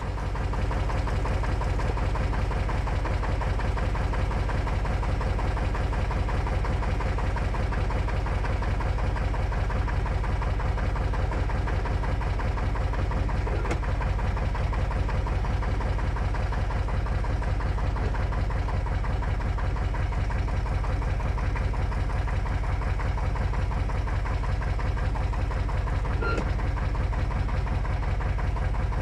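Torpedo TX55A tractor's diesel engine running steadily at a constant speed with an even, rapid knocking rhythm.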